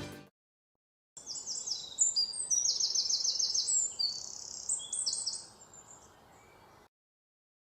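Small birds chirping: a busy run of quick, high, downward-sliding notes that starts about a second in, thins out and stops shortly before the end.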